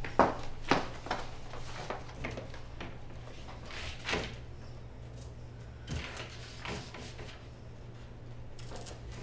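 Two footsteps on a hard floor right at the start, then soft paper rustling and a few light taps as a sheet of paper is pressed and pinned onto a bulletin board, over a low steady hum.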